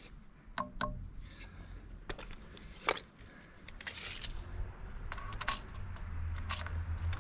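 Metal tape measure being hooked on a nail and pulled out: scattered sharp clicks and scrapes, with a brief rustle about four seconds in. A low hum comes up near the end.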